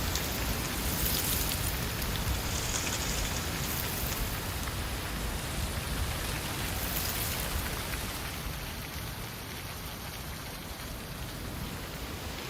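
Strong gusty autumn wind: a low rumble of wind buffeting the microphone under a rushing hiss that swells in gusts, easing off after about two-thirds of the way through.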